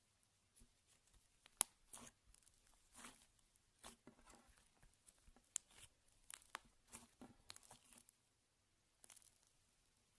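Slime being squeezed and stretched by hand, making faint, irregular crackling pops and clicks.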